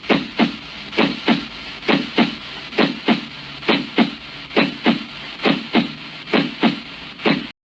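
Recording of normal heart sounds: a steady lub-dub rhythm of about 65 beats a minute. Each beat is the first sound (S1, the closing of the mitral and tricuspid valves) followed about a quarter second later by the second sound (S2, the closing of the aortic and pulmonary valves). The recording cuts off suddenly near the end.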